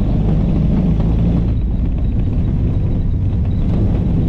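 A 1935 Austin 7 Ruby on a drive, its small side-valve four-cylinder engine running with a steady low rumble of engine and road noise.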